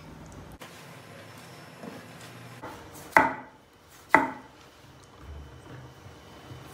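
Kitchen knife slicing through a tomato and knocking down onto a wooden end-grain cutting board: two sharp strikes about a second apart, starting a little after three seconds in.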